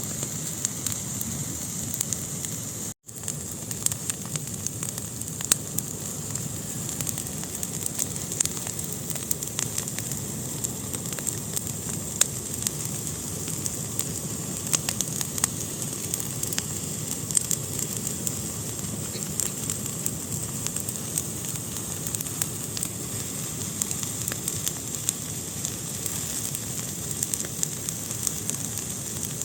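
Fire burning in a fireplace: a steady hiss studded with frequent sharp crackles and pops. The sound cuts out for an instant about three seconds in.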